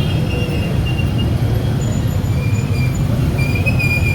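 Street traffic: a steady low vehicle rumble, with thin high-pitched squeals coming and going over it.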